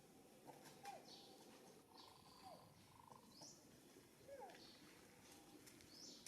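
Faint short animal chirps scattered over a quiet background, a few dropping in pitch, with some soft clicks.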